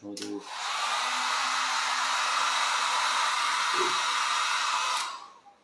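Small handheld hair dryer blowing on hair. It switches on just after the start, runs steadily for about five seconds and switches off near the end.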